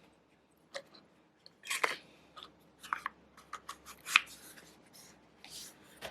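Handling of straight razors and their packaging: a string of small clicks and taps with a few short scraping rustles, the loudest about two seconds and four seconds in.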